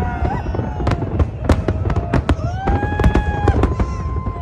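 Fireworks going off: many sharp cracks and bangs at an irregular pace, with long high tones gliding and holding over them.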